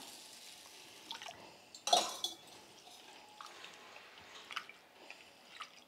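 Toor dal and moong dal being rinsed by hand in a bowl of water: water sloshing and dripping, with one louder splash about two seconds in and a few small splashes later.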